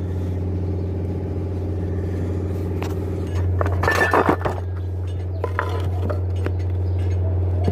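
Steady low engine hum, with a short flurry of metallic clinks and clatter about four seconds in, like tools or parts knocking against metal.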